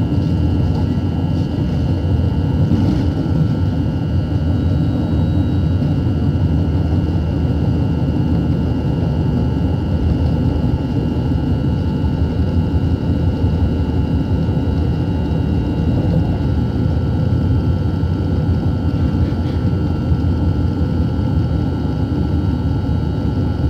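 Steady rumble of a passenger train in motion, heard from inside the carriage, with a thin steady whine above it.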